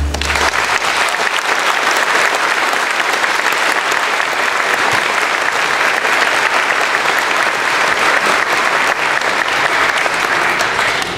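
Audience applauding steadily at the end of a song, many hands clapping together; it starts as the music stops and fades out near the end.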